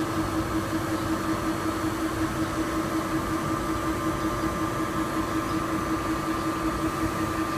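Steady mechanical hum of machinery at a water softener's brine tank, a constant low tone with a slight even pulse.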